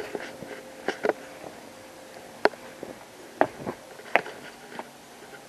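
Handling noise from a handheld camera carried around a garden: a handful of sharp clicks and light knocks, irregularly spaced about a second apart, over a low hiss, with a faint steady hum through the first half.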